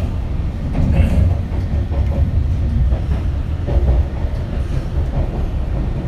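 Steady low rumble of a moving Alstom metro train on Nanjing Metro Line 2, heard from inside the carriage.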